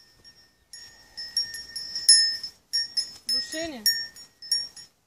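A small bell ringing over and over in quick, uneven strokes, the same note each time, with a single bleat falling in pitch about three and a half seconds in.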